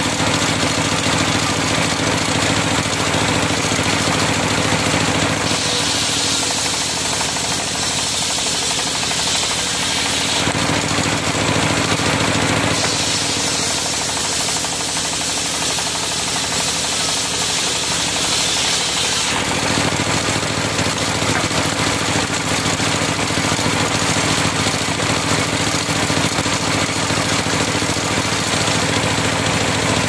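Large circular sawmill blade and its drive running steadily, twice cutting through a log lengthwise, with a harsher hiss of the blade in the wood: once about six seconds in for some four seconds, and again, longer, from about thirteen seconds. Between and after the cuts the blade spins free.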